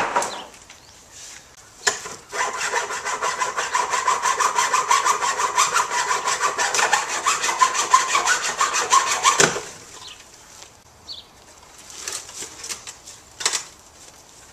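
Hacksaw cutting into the wood of a fence in fast, even back-and-forth strokes for about seven seconds, stopping abruptly. A couple of knocks come before the sawing starts.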